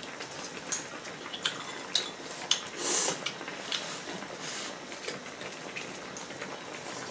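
Chopsticks and utensils clicking against bowls at the table, in scattered light knocks. A short breathy rush of noise about three seconds in is the loudest sound.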